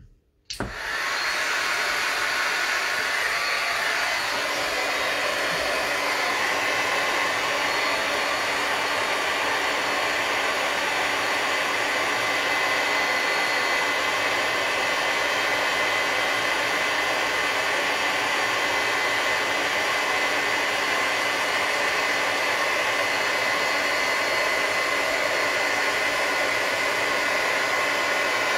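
Handheld embossing heat gun switched on about half a second in and then running steadily: a loud rush of blown air with a steady high whine from its fan, as it melts embossing powder on a stamped card.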